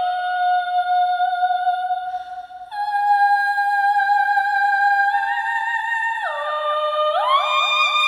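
Background music: long held notes that slide smoothly from one pitch to the next, with a brief drop in loudness about two and a half seconds in.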